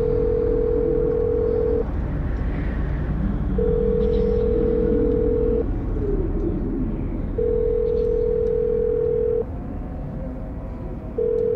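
Telephone line tone heard on a call: one steady beep about two seconds long, repeated four times with pauses of about the same length, over a low rumble.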